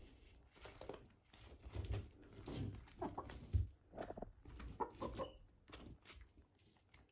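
Young hens clucking while they peck eggshell from a hand, with quick irregular taps and crunches of beaks on the shell.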